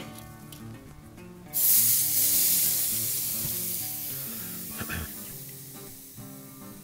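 Beef eye of round roast sizzling as it is set onto the grill grate directly over red-hot charcoal for the reverse sear; the sizzle starts suddenly about one and a half seconds in, then slowly dies down.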